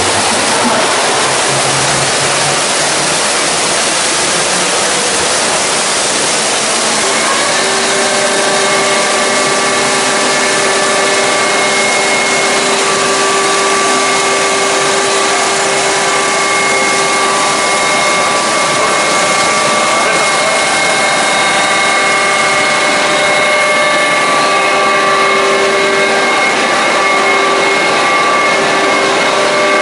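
Hydraulic machine test rig running: a loud, steady rush of flowing water, joined about seven seconds in by several steady whining tones from the running machinery.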